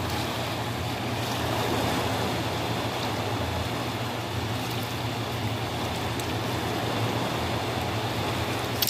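Fast, turbulent river water rushing steadily below a dam. A brief sharp click comes right at the end.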